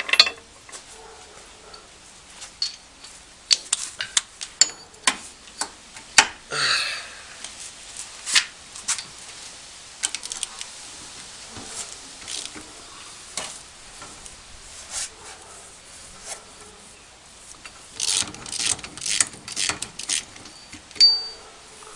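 Hand tools and metal brake parts clinking and knocking during work on a rear drum brake, with a quick run of clicks about three-quarters of the way through.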